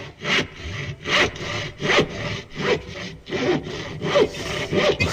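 Rhythmic rasping strokes, back and forth, about three every two seconds. Each stroke is a short scraping rush.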